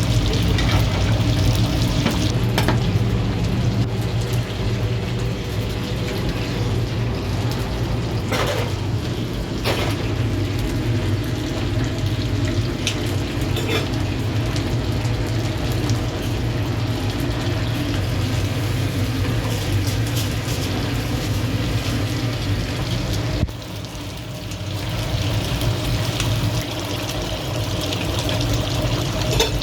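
Chicken roasting over a wood-charcoal fire, sizzling steadily over a constant low hum, with a few sharp knocks. The sound dips briefly about two-thirds of the way through.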